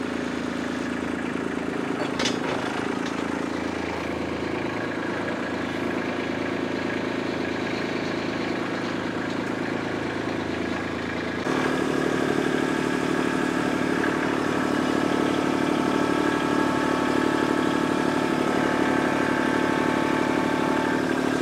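Kubota compact tractor's diesel engine running steadily. About eleven seconds in it gets abruptly louder, with a stronger, more tonal drone.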